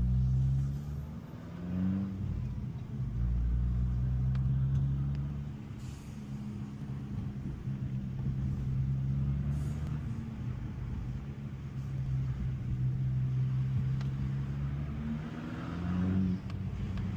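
Abarth 595 Competizione's four-cylinder petrol engine running through its stock exhaust. The engine note holds steady for long stretches, with the revs rising briefly about two seconds in and again near the end.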